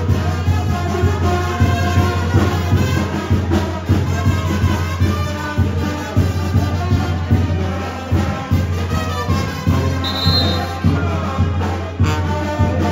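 Music with brass instruments over a strong bass line and a steady beat. A brief high tone sounds once about ten seconds in.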